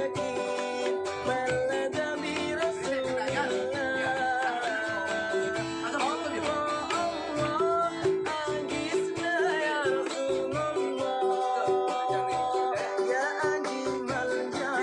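Music: a voice singing a wavering melody over plucked strings and a steady, even beat.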